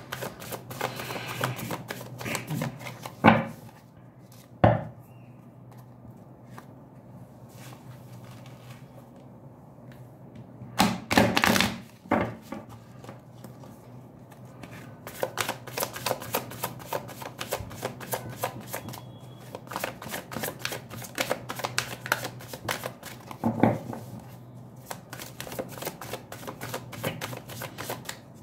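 A deck of tarot cards being shuffled overhand by hand: a fast, uneven patter of card edges clicking together, broken by a few louder knocks. A faint steady hum runs underneath.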